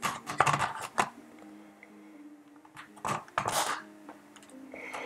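Plastic clicks and rustling from a hand pressing on a DJI Mavic 2 drone with its battery seated in the body. A cluster of clicks comes in the first second and a scrape about three seconds in, over faint background music.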